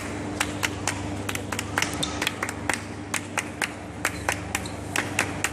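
Hands clapping a steady beat, about three claps a second, over a steady low hum.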